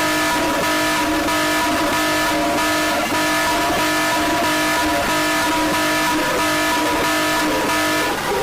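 EAS-style emergency alert alarm: several steady tones sounding together over a harsh, rough noise layer, loud throughout. Near the end the tones shift slightly and thin out.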